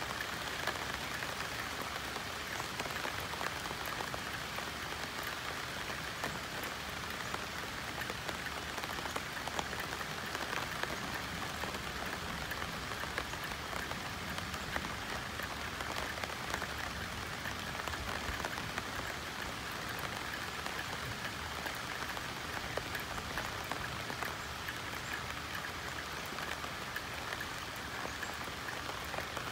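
Steady rain pattering on banana leaves, a constant hiss of many small drop impacts.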